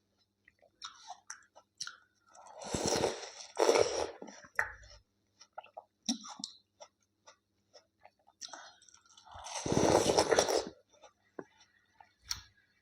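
A person biting and chewing food close to the microphone. There are two louder noisy stretches, about three seconds in and about ten seconds in, with soft short clicks of chewing between them.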